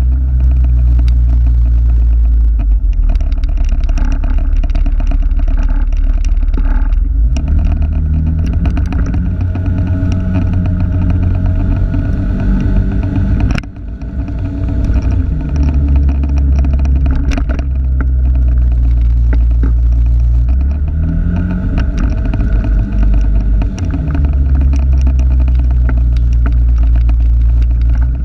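Vehicle engine running while under way, its pitch stepping up and down every few seconds as the speed changes, with a sudden brief drop in level about halfway through.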